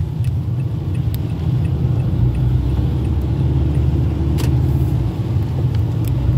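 Steady low rumble of a car driving on a wet road in the rain, heard from inside the cabin, with a few light clicks, the clearest about four and a half seconds in.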